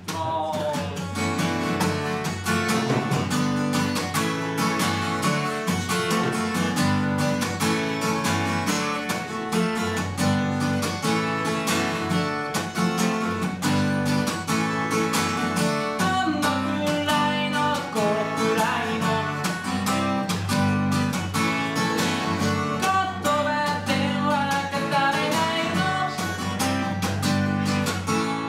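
Acoustic guitar strummed in a steady rhythm, the song starting suddenly with the first chord, with a voice singing over it at times.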